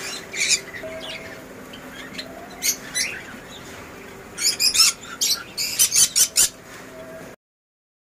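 Pet birds in an aviary squawking and chirping, with a quick run of sharp, shrill calls a little past the middle; the sound cuts off suddenly near the end.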